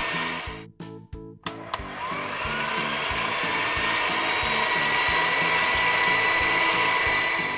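Background children's music with a steady, repeating bass line. Over it runs a whirring, motor-like sound effect for an animated ball-popper toy; it winds up in pitch from about a second and a half in and stops near the end.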